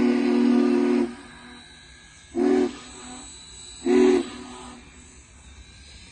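Union Pacific Big Boy No. 4014 steam locomotive's chime whistle. A long blast ends about a second in, then come two short blasts about a second and a half apart, with a faint steam hiss between them.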